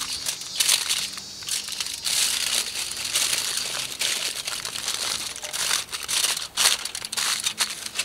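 Aluminum foil crinkling and crumpling in quick, irregular rustles as hands fold and crimp it tightly around a stuffed fish.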